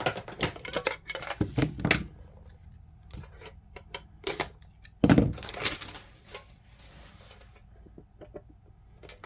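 Metal Pokémon card tins and their contents being handled: a run of irregular clicks, taps and light clatter, with a louder knock about five seconds in.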